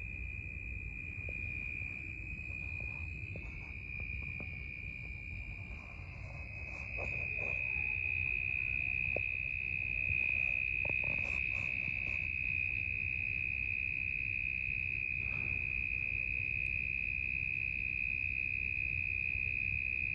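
Night chorus of crickets: a steady, unbroken high trill that gets louder about seven seconds in, over a low background rumble, with a few faint ticks in the middle.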